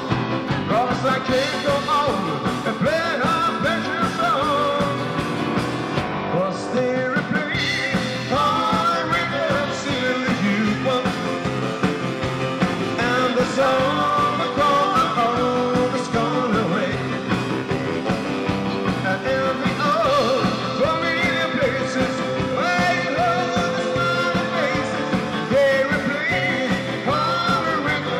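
Live Swedish dansband playing a rock-and-roll song, with a lead vocal singing over the band.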